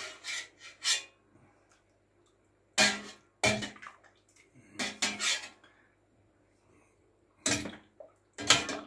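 A cooking utensil knocking and scraping in a stainless steel stockpot as boiled soup vegetables are lifted out of the broth and dropped into a glass bowl: a series of short clatters, some ringing briefly, about a second or two apart with quiet gaps between.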